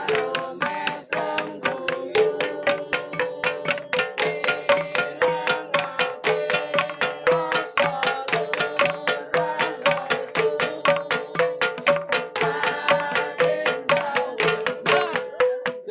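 Prehistoric ringing boulders, the so-called gamelan stones, struck with hand-held stones in a fast, steady interlocking rhythm of several strikes a second. Each stone gives its own ringing, pitched knock, and together they sound like a Javanese gamelan.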